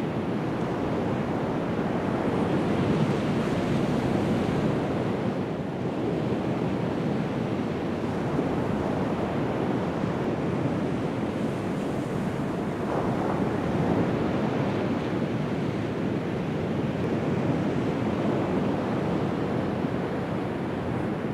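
Ocean surf washing onto a sandy beach: a steady, even rushing of waves, with wind.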